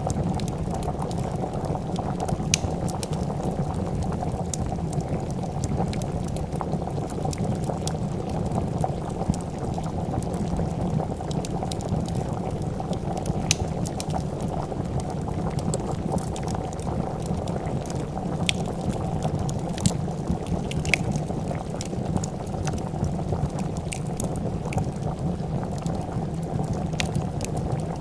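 A pot of soup bubbling at a steady boil, with scattered sharp crackles and pops from a wood fire.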